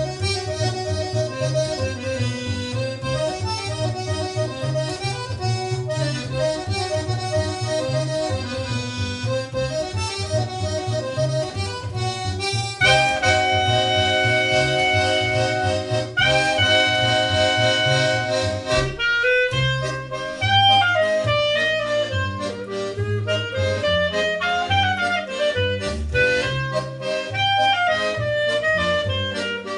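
Accordion and bass playing an instrumental tune live: a steady plucked bass line under accordion chords, with long held chords in the middle before a running melody takes over.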